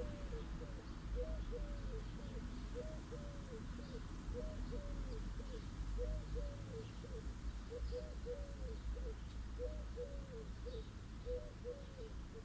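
A dove cooing over and over in short phrases of a few soft arched notes, over a steady low rumble of distant light traffic.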